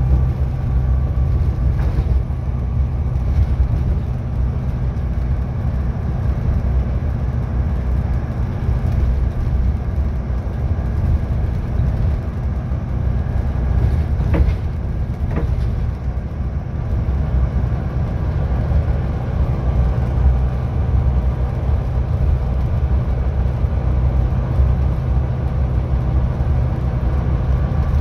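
Volvo B9TL bus's six-cylinder diesel engine heard from inside the passenger saloon, running with a steady low drone as the bus drives along. A few sharp clicks or rattles come through, two of them about halfway.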